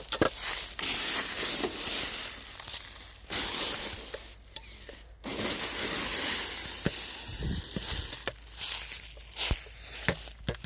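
Irregular crunching of dirt and gravel with sharp clicks, as a Traxxas TRX-4 Defender RC crawler drives over rough ground.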